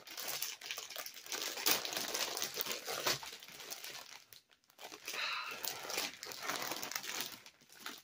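Clear plastic packaging bag crinkling and tearing as it is pulled open and stripped off a plush toy. The crackling runs on densely, with a short break about halfway.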